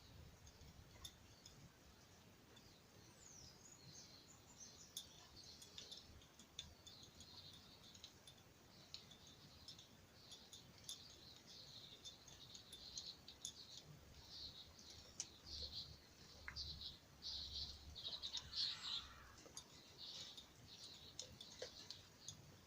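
Faint birds chirping, with many short calls and a few gliding notes, busiest in the second half, along with scattered sharp clicks.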